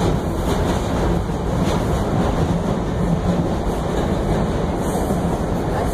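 R142 subway car running, a steady loud rumble of wheels on track and running gear heard from inside the car, with a faint steady hum underneath.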